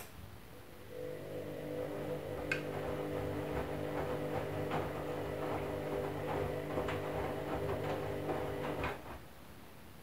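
Candy front-loading washing machine's drum motor starting about a second in and turning the drum steadily for about eight seconds during the wash, a steady hum with light clicks and knocks from the tumbling wet load, then stopping for a rest between tumbles.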